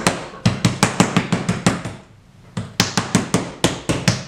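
Hands patting and pressing a soft clay slab on a canvas-covered table: a quick, uneven run of dull slaps, about five or six a second, with a short pause about two seconds in.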